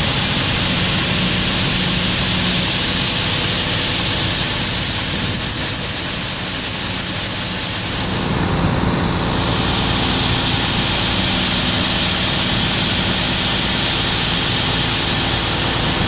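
Tractor engine running steadily under load while a Brent grain cart's auger unloads shelled corn into a semi hopper trailer, with a dense steady hiss of grain pouring into the trailer.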